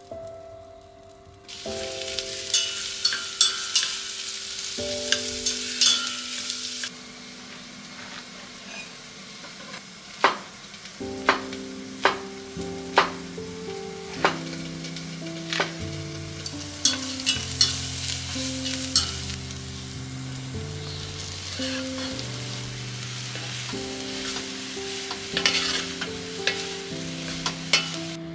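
Food sizzling as it sautés in a frying pan, stirred, with a run of sharp taps near the middle. Soft background music with a stepping melody plays underneath.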